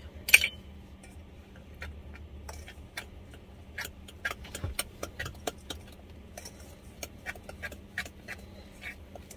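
Metal fork clinking and scraping against a stainless steel mixing bowl as cornbread batter is stirred: irregular light ticks, with one sharper clack about half a second in.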